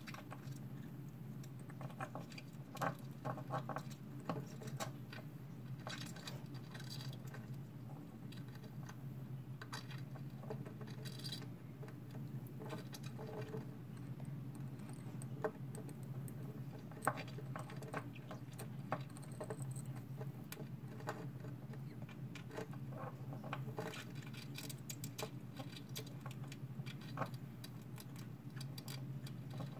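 Purple pincher hermit crabs scrabbling and digging in a sand substrate: irregular light clicks, scratches and patter of legs, shells and grains, a few sharper knocks among them, over a steady low hum.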